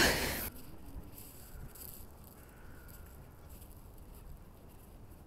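Crows cawing faintly over a quiet outdoor background, after a short loud rush of wind noise on the microphone at the very start.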